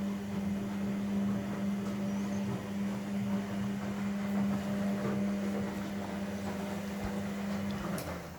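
Steady electrical machine hum with a low drone and some noise over it, cut off with a click near the end.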